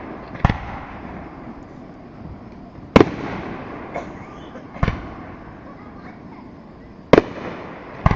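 Aerial fireworks shells bursting: about five sharp bangs a second or two apart, each trailing off in a rolling echo, with a smaller pop between them.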